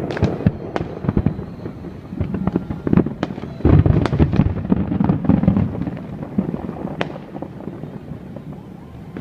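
Fireworks display: a rapid string of sharp cracks and pops with deep booms, densest and loudest about four to five seconds in, then thinning out.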